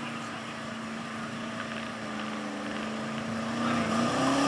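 Gasoline engine of a 1980s Chevrolet pickup running hard under load while pulling a weight-transfer sled, its tyres spinning in the dirt. The engine note holds steady, then climbs in pitch and grows louder near the end.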